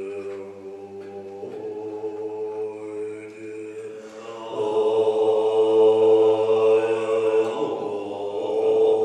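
Tibetan Buddhist monks chanting in the deep multiphonic throat-singing style: a low drone with a rich stack of overtones, held on notes that shift about one and a half seconds in and again about four and a half seconds in, where the chant grows louder and brighter.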